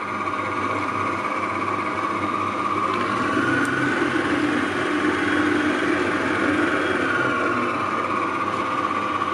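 Stand mixer running steadily, its dough hook turning through dry flour in a steel bowl; a motor whine that rises a little in pitch around the middle and settles back.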